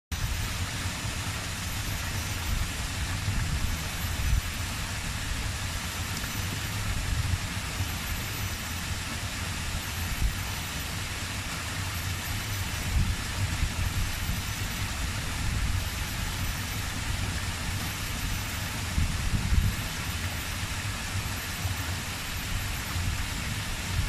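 Small rocky stream running over boulders in little cascades: a steady rush and splash of water.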